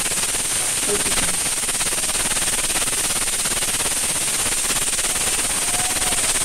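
Dal cooking in a steel pot on a gas stove, giving a steady, dense crackling hiss.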